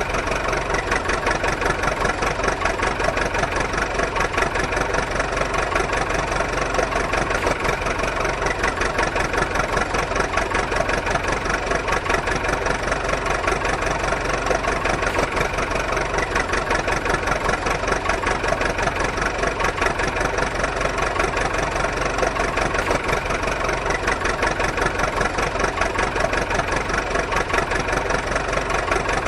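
An engine idling steadily, with a fast, even chugging.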